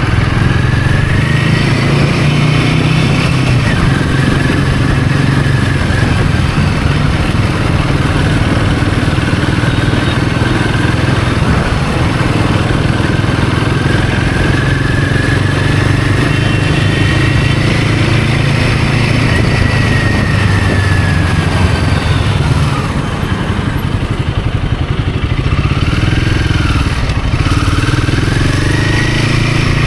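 Royal Enfield Himalayan 450's single-cylinder engine running while riding, with a whine that rises and falls slowly as the speed changes. About three-quarters of the way through the engine eases off, then picks back up with a quick up-and-down in pitch.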